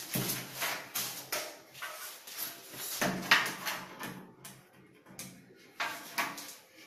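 Knocks and scrapes of a hand spirit level being handled and set upright against a plastered wall, with a sharp tap a little past three seconds in.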